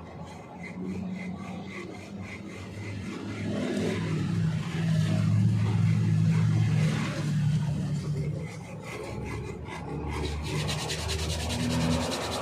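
Repeated rubbing or rasping strokes, like hand work on a small part. A low hum swells in the middle.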